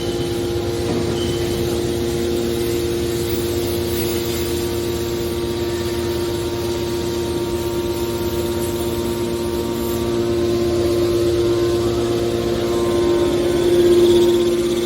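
Hydraulic baler machine running: a steady motor-and-pump hum held at one pitch, growing louder after about ten seconds and peaking near the end.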